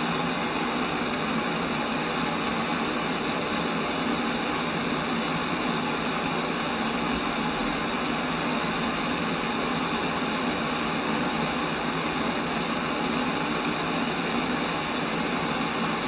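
Gas torch flame hissing steadily without change as it heats a stove's metal fuel tank for brazing.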